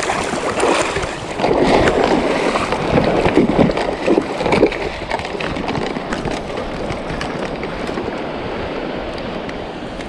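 Fast-flowing river water rushing steadily, louder and more churning for a few seconds in the first half.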